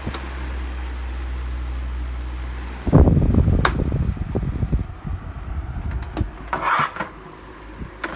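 2005 Challenge 12-inch desk fan's motor running with a steady low hum. About three seconds in a loud clatter of knocks and rattles breaks in, after which the hum drops away, leaving scattered knocks.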